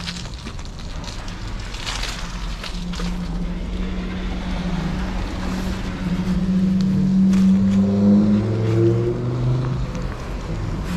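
Car engines running nearby, a steady low hum that grows louder about seven to nine seconds in, with wind on the microphone as the bike rolls.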